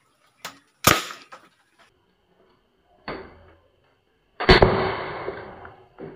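Homemade PVC alcohol-powered toy gun firing 5.5 mm steel balls. There is a sharp bang about a second in, and a second loud bang midway that trails off over about a second and a half.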